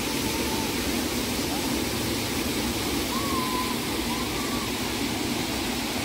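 Waterfall pouring and splashing: a steady rushing noise of falling water.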